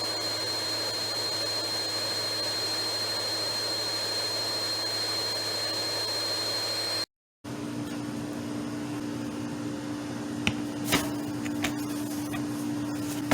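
Vacuum cleaner motor running steadily with a high whine. It stops abruptly about seven seconds in and starts again a moment later with a deeper hum, with a few clicks near the end.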